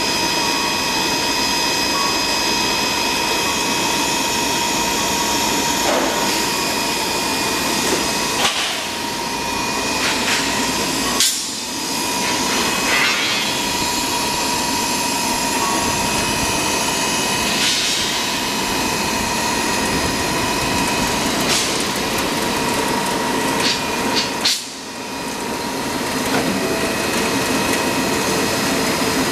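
Steel bar peeling and straightening line running: a steady loud machine noise with a constant high whine, broken by occasional short metallic knocks.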